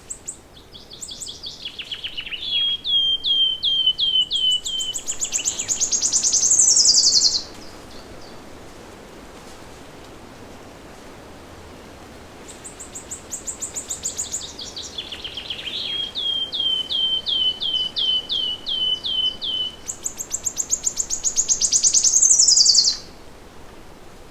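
A songbird sings the same long song twice, each about seven seconds. Each song is a string of quick repeated notes that runs into a fast, loud, high trill and ends in a falling sweep. A faint steady forest background lies underneath.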